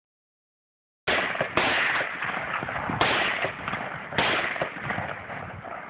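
Four rifle shots from a semi-automatic WASR-10 AK-pattern rifle in 7.62x39, fired one trigger pull at a time: the first about a second in, the second half a second later, then two more spaced over a second apart. Each shot trails off into a long echo.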